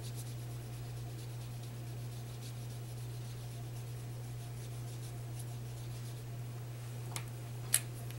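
Faint soft strokes of a wet paintbrush brushing over cardstock, above a steady low hum. Two short clicks near the end, the second louder.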